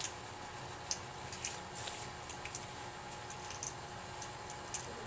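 Faint scattered clicks and scratches from kittens playing in a wire cage with a litter box, over a steady room hum.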